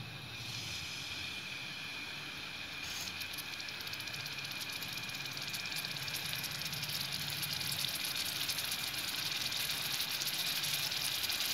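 Marinated fish pieces sizzling in oil on a hot flat griddle (tawa). The crackling sizzle grows louder about three seconds in and keeps building as more pieces are laid down.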